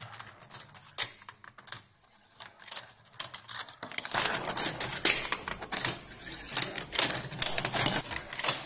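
Steel marbles rolling and clicking through a plastic GraviTrax marble run: irregular clicks and knocks, sparse at first, then busier with a low rolling rumble from about four seconds in.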